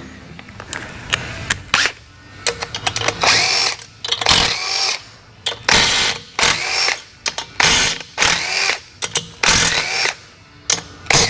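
A cordless power drill/driver run in about half a dozen short bursts, each spinning up and winding down, as fasteners are spun out of a Harley Twin Cam engine; light clicks of tool and parts between the bursts.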